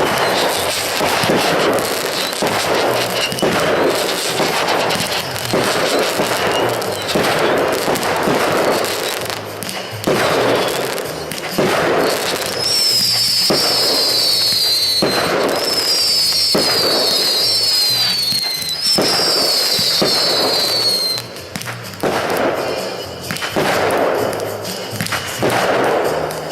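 Aerial fireworks going off in a rapid series of bangs and crackles, over background music. Partway through come three runs of high, falling whistles.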